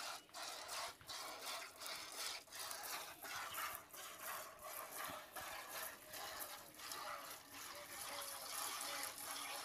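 Milk squirting by hand from a cow's teats into a plastic bucket, a steady rhythm of short hissing squirts, each pull of the teat heard separately.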